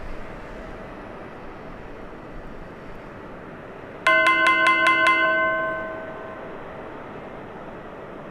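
A bright bell-like chime sound effect: about six quick strikes within a second, then ringing out for about a second and a half. Under it runs a steady low rumble.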